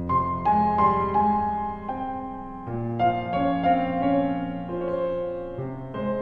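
Piano playing a slow instrumental introduction: a melody of single notes over held chords, before the singing comes in.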